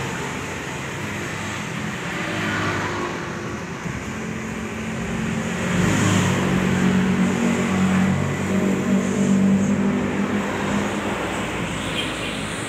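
Road traffic: motor vehicle engines running and passing, growing louder for a few seconds around the middle.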